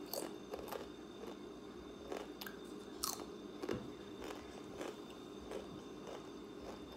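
A child biting and chewing crunchy snack chips, with irregular small crunches.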